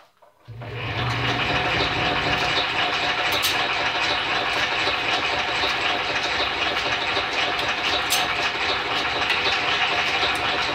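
Electric motor and belt drive of a restored Champion camel-back drill press switching on about half a second in, then running steadily, with a few sharp ticks.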